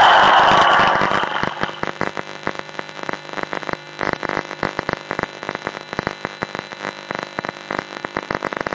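A large audience applauding: a loud swell of clapping at first that thins after about a second and a half into steady, dense hand-clapping.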